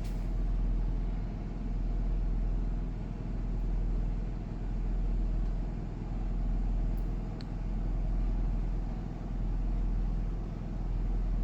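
Furrion Chill Cube 18k variable-speed rooftop air conditioner running in cooling mode with its fan on medium: a steady mechanical hum with a low drone that swells and fades slowly, about every second and a half.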